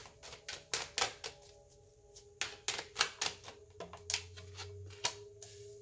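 Tarot cards being shuffled and handled: a run of quick, irregular papery card snaps and taps.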